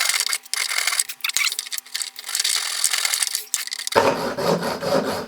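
Hacksaw sawing back and forth through a metal microphone body, a harsh rasping stroke after stroke with short breaks between them; about four seconds in the sawing turns fuller and lower.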